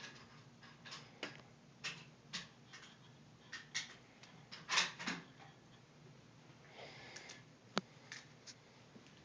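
Faint, irregular clicks and small knocks, about a dozen, unevenly spaced. A louder cluster comes about five seconds in and a single sharp click comes near the end.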